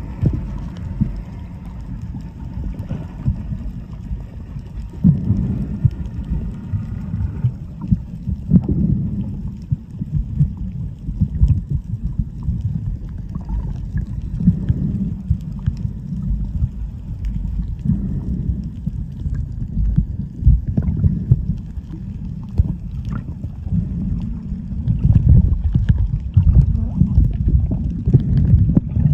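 Muffled water noise picked up by a camera held underwater: a low churning rumble with irregular knocks and crackles, from water moving and splashing against the camera.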